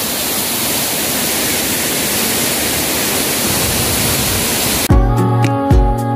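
Steady roar of a waterfall crashing onto rocks, cut off abruptly about five seconds in by background music with a drumbeat and bass.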